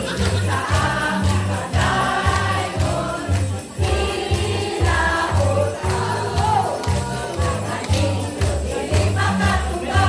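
A mixed group of singers singing a song together, many voices in unison, over a backing track with a steady bass beat.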